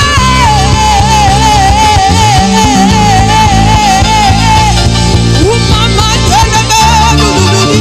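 Gospel worship music from a live band, with a long wavering held melodic note for about the first five seconds, then shorter held notes over the steady accompaniment.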